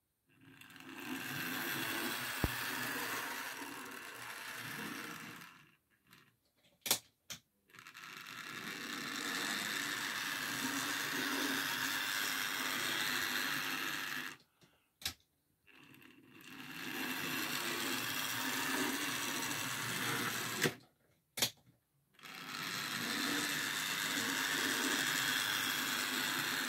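Egger-Bahn model steam tram running on its track: its small electric motor and gears give a steady whir, which stops and starts four times. Sharp clicks come in the short pauses between runs.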